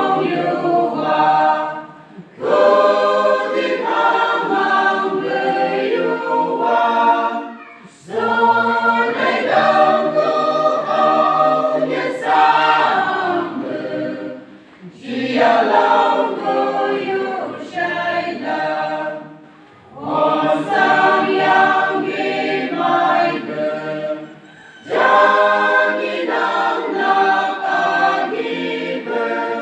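A choir singing in parts, in phrases of a few seconds each with a short breath-pause between them.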